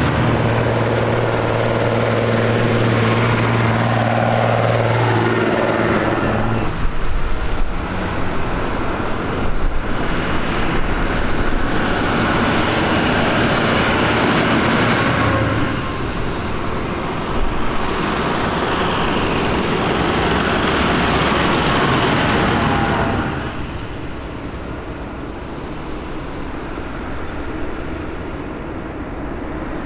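Diesel farm tractors driving past one after another. A steady engine note from the nearest tractor is heard for the first several seconds, then the rougher noise of engines and tyres passing close, which drops away about three quarters of the way through.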